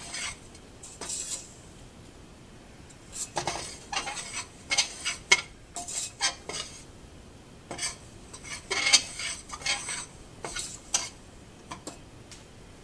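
Metal spoon stirring and scraping through hot baking soda powder in a stainless steel saucepan, in irregular gritty strokes against the pan. The powder is being heated and turned over as it breaks down into washing soda.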